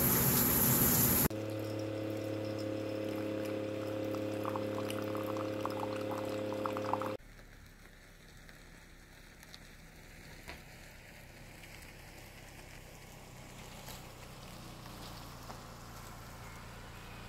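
A shower running for about the first second, cut off abruptly by a steady multi-tone motor hum lasting about six seconds that also stops suddenly. After that it is quiet, with a faint hiss that grows slightly louder near the end as an SUV drives slowly up.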